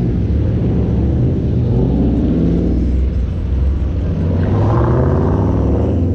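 A muscle car's engine rumbling, revved twice: each time the pitch climbs and then falls back.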